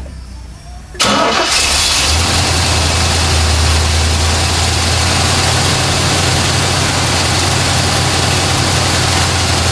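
A 1970 Corvette's 350 cubic-inch small-block Chevy V8 fires about a second in and keeps running steadily and loud. This is the engine running again after being a no-start, with its distributor timing just reset.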